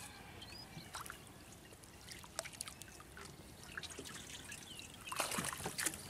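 Water trickling and dripping as a cast net is hauled by hand out of the river over a boat's side, growing into louder pouring and splashing about five seconds in as the net comes up out of the water.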